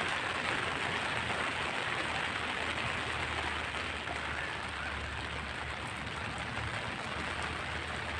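Steady rain falling, an even hiss with no single drops standing out, with a low hum underneath from about two seconds in.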